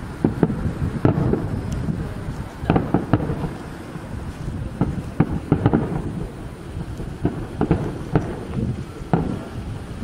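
Aerial firework shells bursting one after another in a rapid, irregular series of booms, heard from over a kilometre away. Wind rumbles on the handheld camera's microphone underneath.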